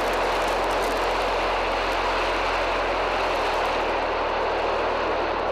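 Soyuz rocket's RD-107 and RD-108 engines running at ignition, a steady noise of engine exhaust during the preliminary thrust stage, when the engines are held at about 5% power.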